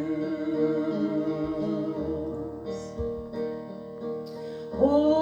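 Piano or keyboard playing held chords as a short instrumental interlude between verses of a hymn. Singing voices come back in near the end.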